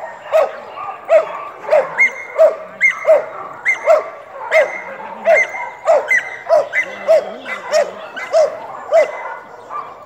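Belgian Malinois barking steadily and repeatedly, about one and a half barks a second, as an aggressive bark at the helper in protection training.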